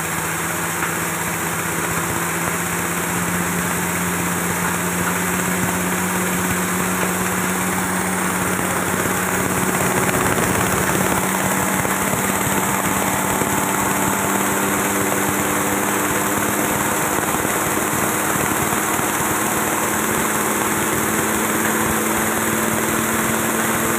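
Small petrol engine driving a belt-driven chopper/grinder mill under load, a steady engine drone over the grinding noise of material going through the mill. The engine pitch climbs a little over the first few seconds, then holds steady.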